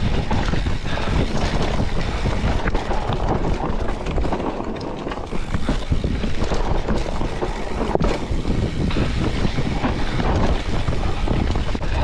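A hardtail mountain bike rattling and clattering down a rough, muddy trail, with constant knocks from hitting bumps. Wind buffets the microphone.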